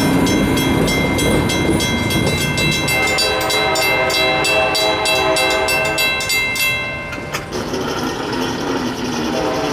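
Grade-crossing bells ringing in a rapid, steady clang over the rumble of a passenger train pulling away. From about three seconds in, the receding train's horn sounds one long blast. The horn and the bells cut off together near the end, as the crossing clears and its gate starts to rise.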